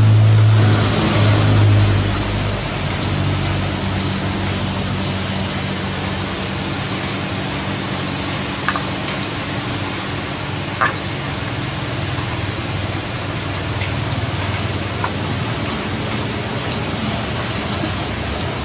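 Steady hiss of heavy rain, with a low hum under it for the first two seconds and a few light clicks later on.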